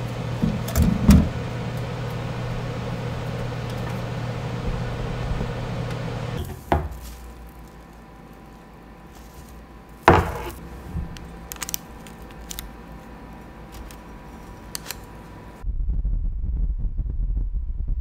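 Small countertop oven running with a steady hum, which stops with a sharp click after about six seconds. A few knocks follow, the loudest about ten seconds in. Near the end an electric fan starts blowing across the microphone with a low rushing rumble.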